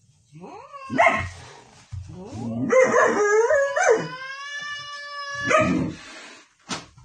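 Husky-type dog whining and howling: a short rising-and-falling whine about a second in, then a long howl from about three seconds in that wavers and then holds one steady pitch for a couple of seconds.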